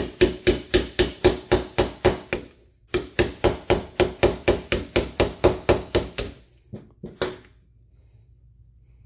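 Small gunsmith's hammer tapping a pin punch to drive the trigger housing pin out of a Canik TP9SFX frame. The taps are quick and even, about four a second, in two runs with a short break between, followed by two last spaced taps.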